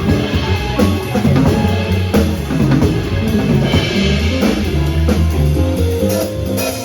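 A live quartet of drum kit, saxophone, piano and bass playing, with busy drumming to the fore over a walking bass line.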